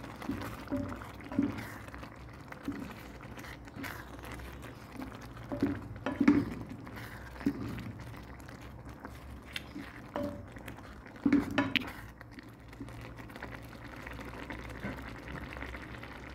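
Wooden spatula stirring a wet minced-chicken, rice and tomato-sauce filling in a skillet, the mixture simmering with a soft bubbling and squelch. Irregular knocks of the spatula on the pan, the loudest about six seconds in and again near eleven seconds.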